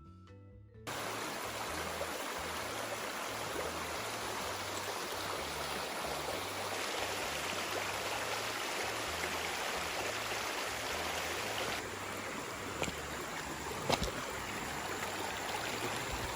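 Rushing water, a steady even rush that cuts in suddenly about a second in, with soft background music and its bass notes going on underneath. A couple of faint clicks near the end.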